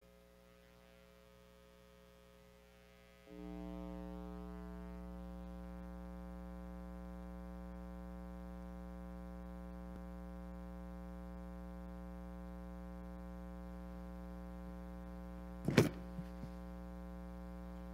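A steady electrical buzzing hum from the sound system switches on a few seconds in and holds unchanged. Near the end comes one loud thump of a microphone being handled.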